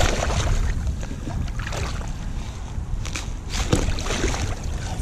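Rubber boot stomping down through thin shelf ice into shallow water several times, about once a second: the ice cracking and breaking up, with the water splashing and sloshing.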